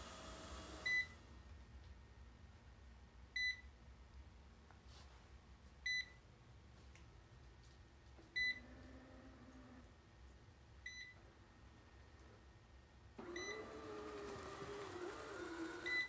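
Robot vacuum cleaner beeping: a short high beep about every two and a half seconds, five times, with its motor falling silent at the first beep. About thirteen seconds in, the motor starts running again with a wavering hum, and one more beep comes at the end.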